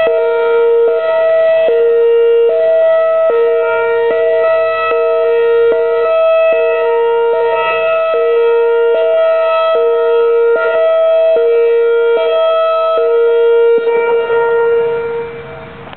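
Whelen Vortex-R electronic outdoor warning siren sounding an alternating high-low two-tone signal, switching pitch about every 0.8 s. Near the end the alternation stops and the sound fades away.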